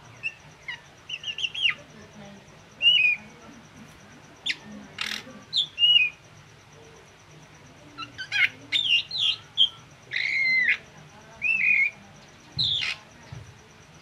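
Caged drongo singing: a varied run of short whistled notes, rising and falling slurs and sharp chips, delivered in separate phrases with pauses between them.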